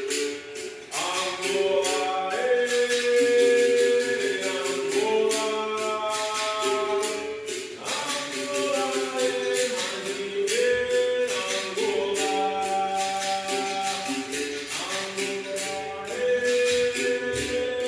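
A group sings a capoeira song over the quick, steady strikes of a berimbau.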